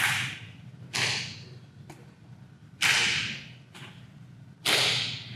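Sharp slaps of punches landing on a partner's raised hands: four loud cracks about one to two seconds apart, with a couple of fainter hits between. The punching arm is thrown loose by a turn of the pelvis.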